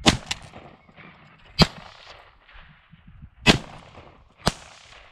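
A 12-gauge shotgun fired four times, with loud, sharp reports spaced one to two seconds apart and a smaller crack just after the first.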